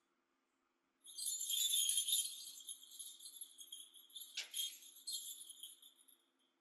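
Small bells jingling: a bright shimmering shake starts about a second in and dies away over several seconds, with one sharper knock partway through.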